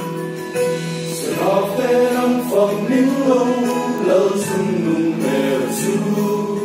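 Mixed church choir singing a gospel hymn in Mizo, the voices coming in about a second in over sustained instrumental chords.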